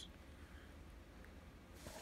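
Near silence: room tone with a low steady hum, then a faint paper rustle near the end as a book page starts to be turned.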